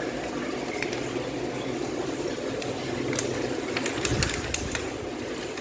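Aquarium filter running, a steady watery rush with a low hum, with a cluster of sharp clicks and a low thump a little past halfway through.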